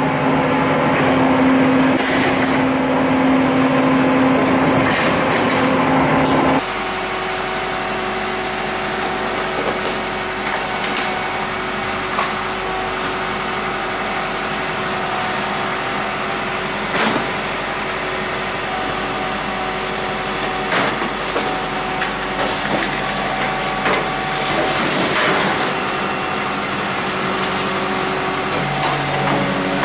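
Garbage truck engine and hydraulics running with a loud, steady hum while the rear lift tips a wheeled bin into the hopper. About six and a half seconds in this gives way to a second, crane-equipped garbage truck running with a slightly quieter steady hum as it hoists a collection box, with scattered knocks and clanks, most of them in the second half.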